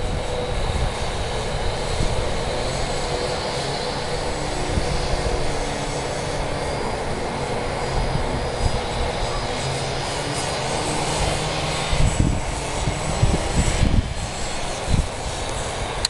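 Electric motor and propeller of a ParkZone Albatros radio-controlled biplane in flight overhead: a thin, high whine that steps up in pitch about six seconds in. Wind buffets the microphone with low gusts, heaviest in the last few seconds.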